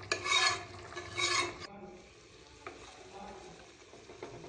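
Metal spoon stirring thick chicken curry in a pressure cooker pot, scraping twice against the pot in the first second and a half. A faint sizzle follows, with a light tap of the spoon.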